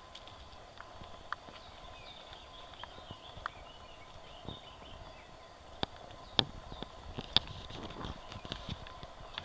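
Footsteps on a dirt forest path: irregular crunches and clicks, with a few sharper taps in the second half.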